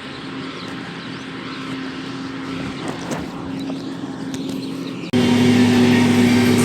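Tractor engine running with a steady hum; about five seconds in it abruptly becomes much louder and closer.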